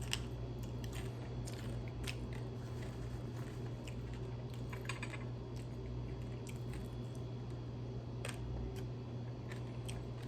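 Close-up crunching and chewing of crispy refried chicken, scattered sharp crackles as it is bitten and chewed, over a steady low hum.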